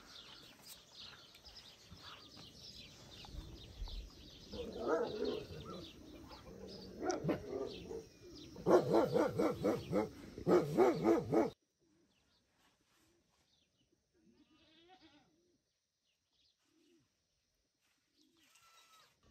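Goats bleating: scattered calls at first, then louder, quick-pulsing bleats from about nine to eleven seconds in, after which the sound cuts off suddenly to near silence.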